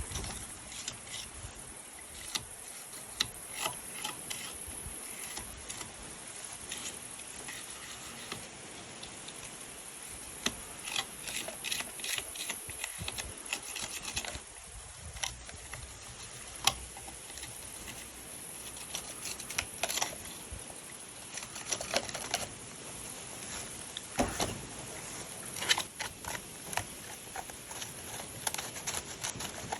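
Irregular small clicks and taps of a plastic Nerf blaster's parts being handled and worked on during cleaning, over a faint steady hiss.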